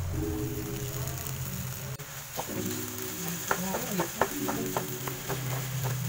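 Diced potatoes sizzling in oil in a frying pan. From about halfway in, a wooden spatula stirs them with a run of scrapes and taps against the pan.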